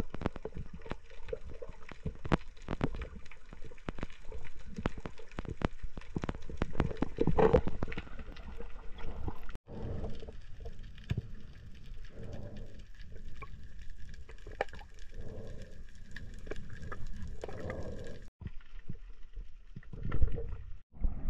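Underwater sound picked up by a camera below the surface: muffled water noise with many sharp clicks and crackles through the first several seconds, then softer, rushing swells every couple of seconds. The sound drops out briefly about ten seconds in and again near the end.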